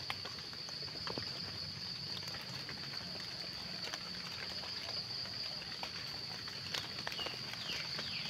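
Steady high-pitched drone of insects, with scattered faint rustles and crackles of wet leaf litter being stepped on or brushed.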